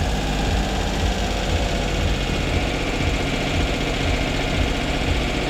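Toyota Duet petrol engine idling steadily at a high idle right after starting. The fast idle is the fault being chased on this car's throttle body, here with its idle valve turned slightly.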